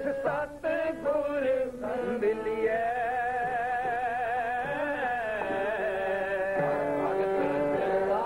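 Sikh keertan: a man singing gurbani with vibrato on long held notes, over the steady drone of a harmonium.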